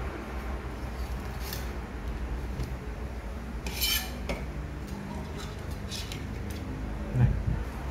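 Cutlery clicking and scraping against a plate, in scattered light strikes, with one sharper clatter about four seconds in and a dull thump near the end.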